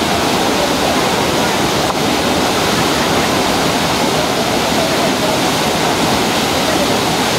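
Torrent of white water gushing out through concrete outlets: a loud, steady rush.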